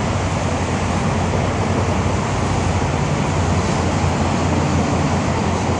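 Steady rushing noise with a low hum underneath, unchanging throughout.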